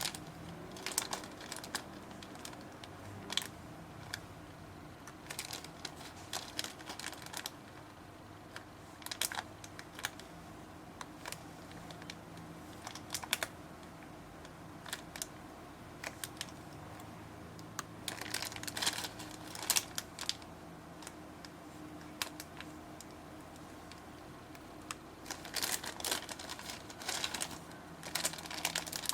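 Slime being squeezed and pressed by hand, giving clusters of small sharp clicks and pops that come in bursts, over a faint steady hum.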